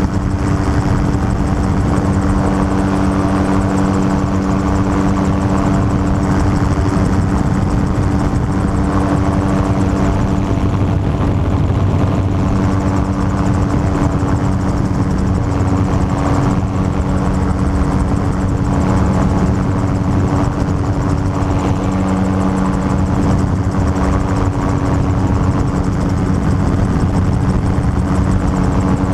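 Gyrocopter's engine and propeller droning steadily in level flight, with wind rushing past the open cockpit.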